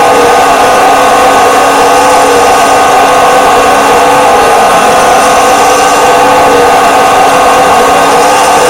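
Steady engine drone from RC model tractors at work, holding one unchanging pitch throughout.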